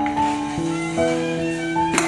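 Instrumental background music, its held notes changing about every half second, with one sharp click near the end.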